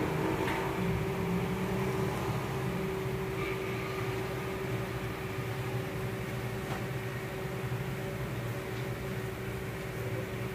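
Steady mechanical hum with a low rumble and one constant tone, the sound of a motor or fan running in the kitchen.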